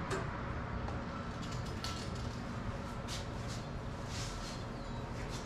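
A few light clicks and taps of a small Allen wrench turning screws into the metal wire basket mount of an electric scooter, over a steady low room hum.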